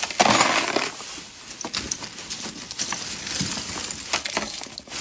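A pile of costume jewelry (bead necklaces, chains and metal pieces) pouring out of a plastic bag into a plastic tub: the bag crinkles, and the pieces clatter and clink in a dense rush about a quarter second in, then in scattered clinks as more slide out.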